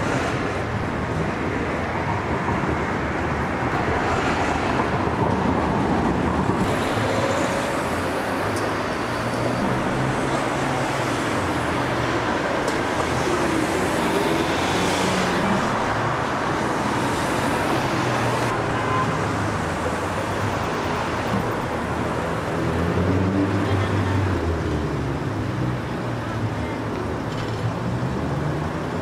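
Steady city traffic noise, a continuous rumble and hiss of passing vehicles.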